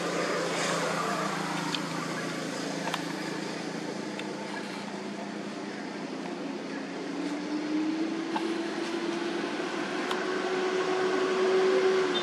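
Steady engine drone, rising a little in pitch and growing louder over the last few seconds.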